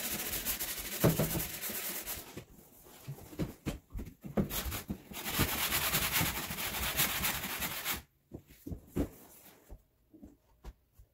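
Hand-sanding of painted wooden cabinet face frames with sandpaper: a steady scratchy rasp in two spells, the second starting a little after four seconds in and stopping suddenly about eight seconds in. After that only a few faint knocks are heard.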